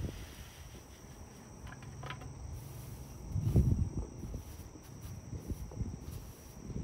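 Steady high-pitched insect chirring in two unbroken tones, over soft handling noise of perlite being poured from a plastic bucket and spread by hand, with a low thump about three and a half seconds in.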